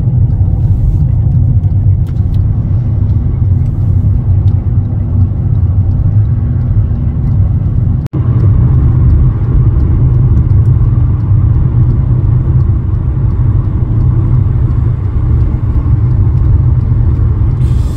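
Steady low rumble of road and engine noise inside a car's cabin at highway speed. The sound cuts out for an instant about eight seconds in, then continues.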